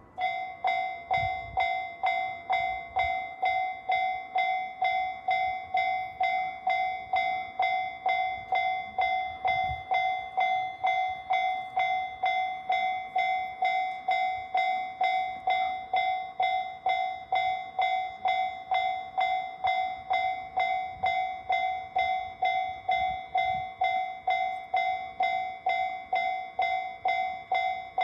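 Japanese railway level-crossing alarm sounding the JR standard electronic bell tone. Its ding starts suddenly and repeats steadily at about two a second.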